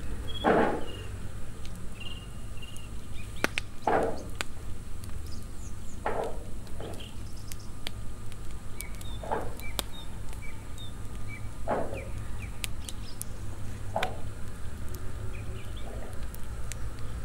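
Knife cutting on a wooden stump block: sharp, scattered clicks as the blade meets the wood. Soft swishing sounds come every two to three seconds, and short bird chirps sound faintly over a low steady hum.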